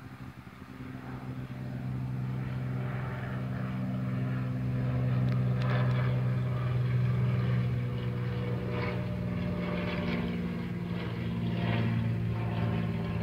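A steady, low engine drone that grows louder over the first few seconds and then holds.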